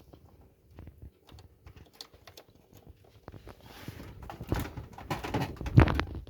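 Handling noise from a multimeter and its test leads being set up for a voltage measurement: a run of small clicks and knocks, sparse at first, then denser and louder from about four seconds in.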